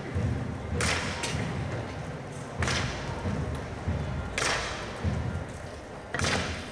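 Wooden horquillas, the carrying forks of a Cádiz Holy Week paso's cargadores, striking the street in a slow, even rhythm as the paso advances: a sharp knock roughly every two seconds, four in all, the first doubled. A low rumble runs underneath.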